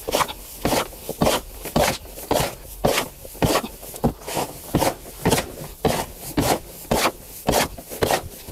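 Hand shovel scraping and turning a damp potting mix of soil, rice husks and cow manure in a plastic basin, in quick regular strokes of about three a second.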